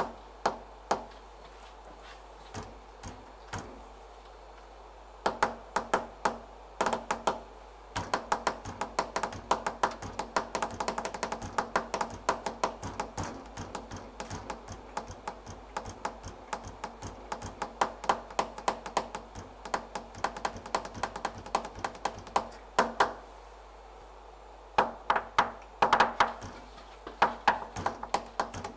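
Darbuka (goblet drum) played by hand: sharp finger strokes, a few scattered at first, then fast rhythmic runs of many strokes a second with a short ring. They stop for a couple of seconds near the end, then start again.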